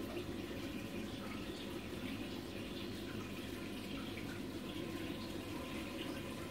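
AquaReef 275 reef aquarium's circulating water trickling and splashing steadily, over a low steady hum.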